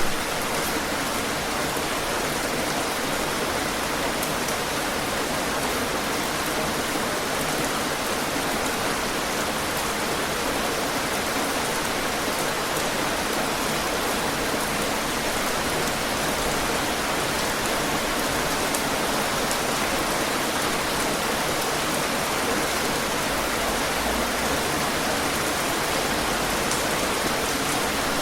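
Heavy rain falling steadily, a dense even hiss with fine drop patter.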